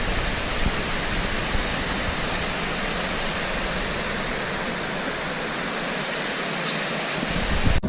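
Waterfall rushing steadily: an even wash of falling water.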